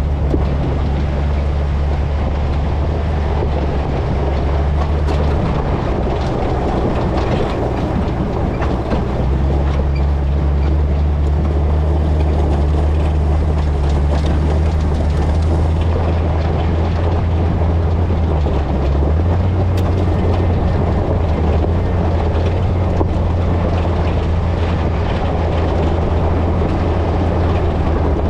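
GMT800 truck driving over rough ground in a dry wash: the engine runs steadily under load with its note shifting a few times, over a constant rolling, rattling noise from tyres and suspension.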